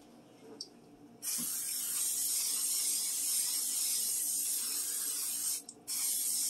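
Aerosol butter cooking spray hissing from the can into a frying pan: one long spray starting about a second in, a brief break near the end, then a second spray.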